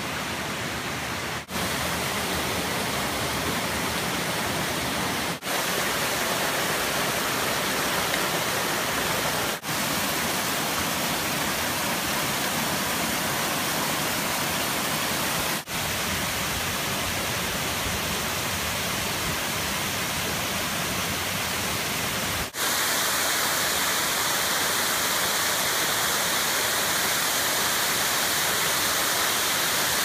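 Waterfalls and cascades of a small rocky forest stream, a steady rushing of falling water, dropping out briefly five times where one clip cuts to the next.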